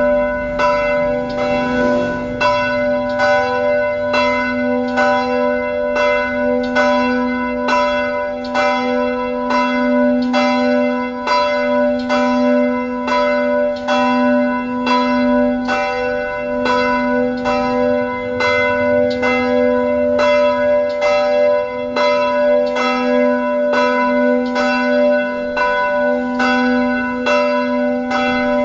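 Church bells ringing: an even run of strikes, about three every two seconds, over a deep hum that rings on without a break.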